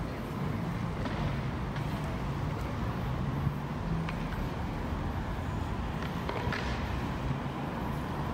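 Street traffic: a motor vehicle's engine running with a steady low hum over outdoor street noise.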